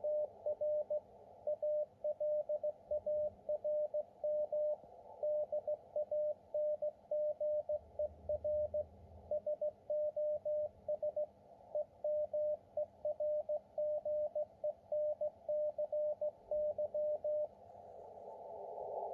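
Morse code received on the 40-metre amateur band: one steady tone keyed on and off in dots and dashes over the receiver's filtered hiss, a message given as an SOS request from Ukraine. The keying stops about a second and a half before the end, leaving the hiss, which grows louder.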